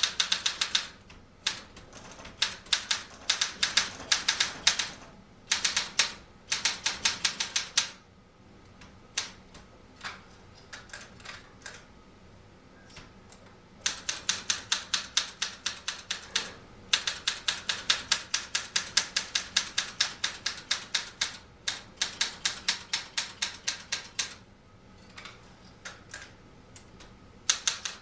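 Olympia SM-9 manual typewriter being typed on: quick runs of sharp keystrokes, several a second, broken by pauses, with a stretch of fainter, sparser clicks in the middle.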